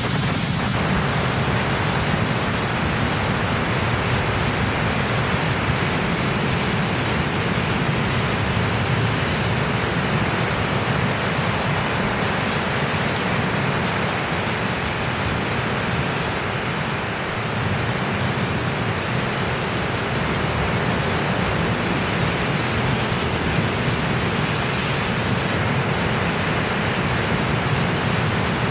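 Sea surf breaking and foaming over rock ledges: a loud, steady rush of churning water.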